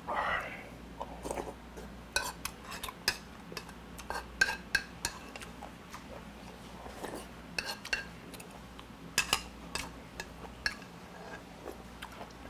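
A metal spoon clinks and scrapes against a bowl while soup and rice are scooped up and eaten: many short, sharp clinks, some in quick pairs, spread through with small pauses.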